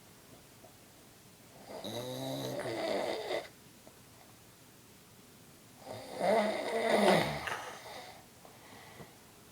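A sleeping man snoring: two long snores, one about two seconds in and the next about four seconds later, with quiet breathing pauses between.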